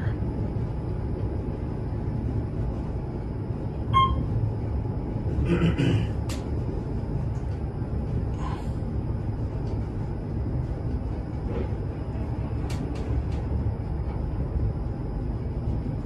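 Steady low rumble inside a scenic elevator car as it travels up the tower shaft, with one short electronic beep about four seconds in.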